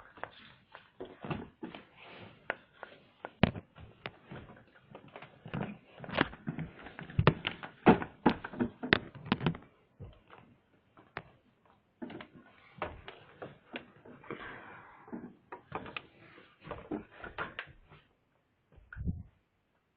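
Irregular series of sharp clicks and knocks in clusters, with a short lull about halfway through.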